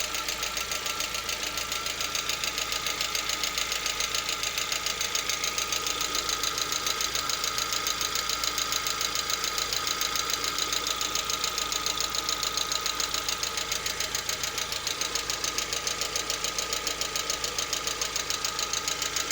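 Lada Vesta's four-cylinder petrol engine idling with a steady, rapid knock. The knock comes only part-way through warm-up, at about 50 °C: there is none from cold, and it goes away at operating temperature. The owner does not know the cause.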